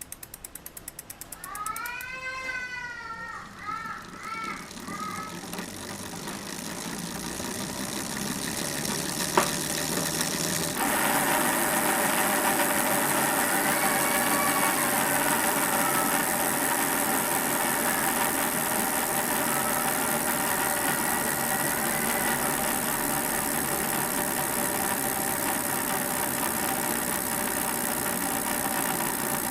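Mountain bike's Novatech D762TSBT rear hub freewheel buzzing steadily as the wheel spins, louder from about eleven seconds in, with a single sharp click shortly before. A few short squeaky chirps come a couple of seconds in.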